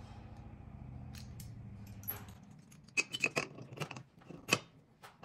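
Stainless steel tri-clamp and column flange clicking and clinking as the clamp is fitted around the joint: a quiet stretch, then a run of sharp metal clicks from about three seconds in.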